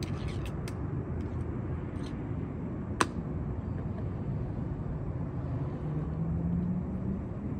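Steady low rumble of vehicle traffic, with one sharp click about three seconds in and a low engine hum that rises slightly near the end.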